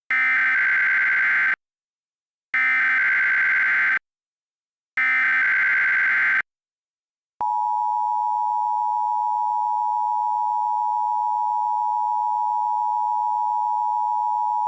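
Emergency Alert System SAME header: three bursts of digital data tones, each about a second and a half long with a second of silence between. About seven seconds in, the long, steady two-tone EAS attention signal starts.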